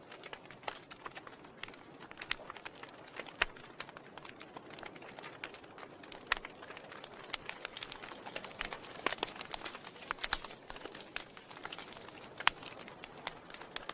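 Wood fire in a fireplace crackling: irregular sharp pops and snaps over a soft steady hiss, coming thicker about halfway through.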